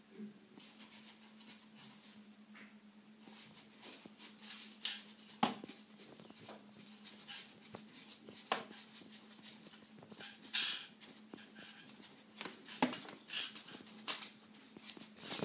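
Folded paper fan waved by hand, giving irregular puffs of air with light flapping and clicking of the paper, over a steady low hum.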